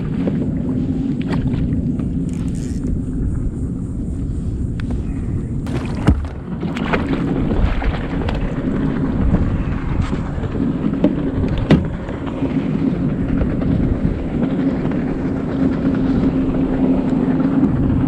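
A steady low motor hum under wind rumble on the microphone, with two sharp knocks, about six and twelve seconds in.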